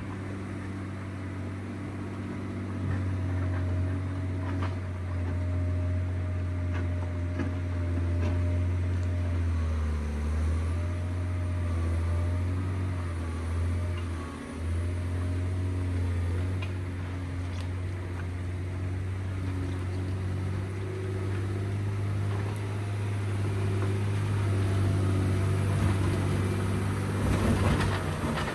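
John Deere 670GP motor grader's diesel engine running steadily under working load, its note sagging about ten seconds in and dropping briefly around the middle. Light clicks and rattles from the machine come through over the hum, which grows louder near the end.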